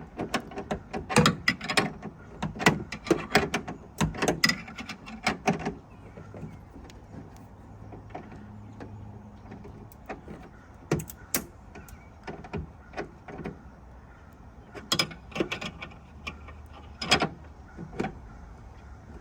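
Metal clicks and knocks from fitting and tightening a steel eye bolt in a pickup bed's tie-down hole: quick clusters of clicks for the first few seconds, then scattered single clicks.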